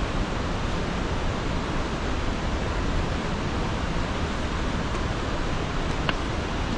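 A steady, even rushing noise, with a couple of faint clicks near the end.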